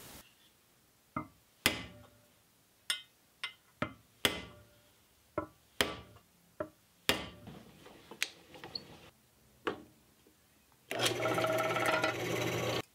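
About a dozen sharp, separate taps of a hammer on a center punch, punching hole marks into the aluminium mounting bracket of a coolant surge tank. About eleven seconds in, a benchtop drill press motor starts and runs steadily for a couple of seconds.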